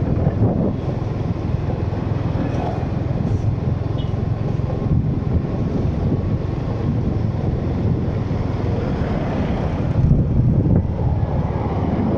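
Steady low rumble of a vehicle driving on the road, with wind buffeting the microphone.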